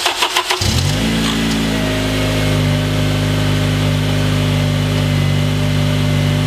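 The 2.4-litre four-cylinder engine of a Honda Accord starting: the starter cranks for a moment, the engine catches about half a second in, rises briefly and settles into a steady idle. This is the first start after a new serpentine belt has been fitted.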